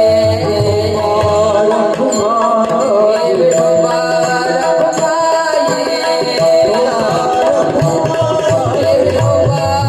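Kirtan music: tabla playing under sustained drone notes, with a melodic line wavering over them. The low tabla strokes drop out about a second and a half in and come back past the middle.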